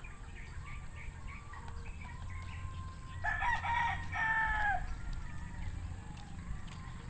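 A rooster crowing once, about three seconds in: a call in two parts, the second falling away at its end.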